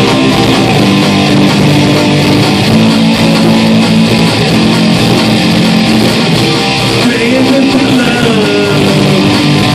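Live rock band playing loudly on electric guitars and bass guitar with drums.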